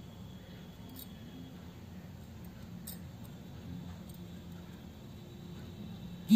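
Quiet handling of a crochet hook and wool, with two faint clicks over a low steady hum. Just at the end a loud buzzing tone cuts in suddenly.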